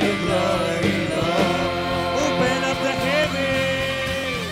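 Live praise-and-worship music: a band playing under a wordless sung vocal line that bends, then settles into one long held note near the end.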